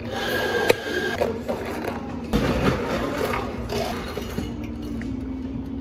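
Iced drinks being made at a cafe counter: liquid poured into plastic cups, with a few knocks of cups and jugs being handled and set down over a steady low hum of cafe equipment.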